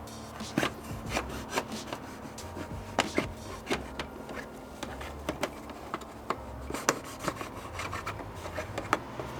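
Pocket knife sawing through a plastic motor-oil bottle to cut its bottom off, an uneven scraping broken by sharp cracks and clicks every fraction of a second.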